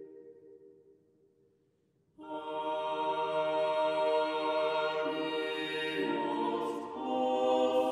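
Background music: a sustained piece fades out, a moment of silence, then slow sustained choral music begins about two seconds in, its chords shifting a few times near the end.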